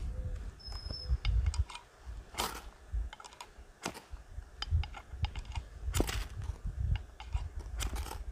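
Ferrocerium fire steel scraped against a Buck Compadre camp axe: several sharp rasping strikes, the strongest about two and a half and six seconds in, among lighter clicks and ticks. The strikes throw sparks into damp tinder to light a fire.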